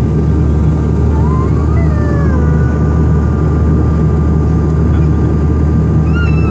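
Jet airliner engines running with a loud, steady rumble, with thin whining tones above it that glide up and down.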